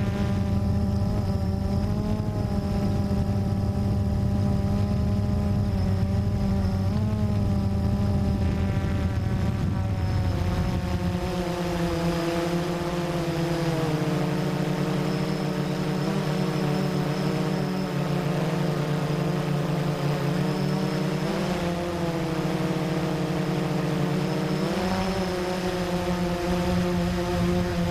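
Blade 350 QX3 quadcopter's four brushless motors and propellers buzzing steadily, picked up close by the fur-covered GoPro riding on it. The pitch wavers up and down as the motors change speed, and the tone shifts lower about ten seconds in.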